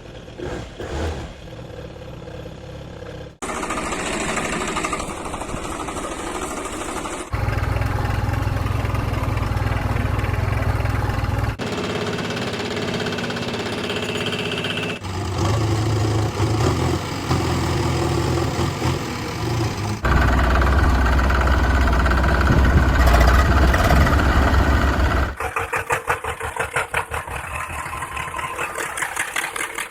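Small tractor engines running in a string of short clips, the sound changing abruptly every few seconds; near the end an engine chugs with a fast, even beat.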